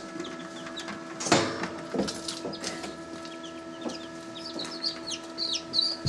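Newly hatched chicks peeping in short, high cheeps that come thicker in the second half. About a second in there is a clatter of plastic as the incubator's clear dome lid is lifted off.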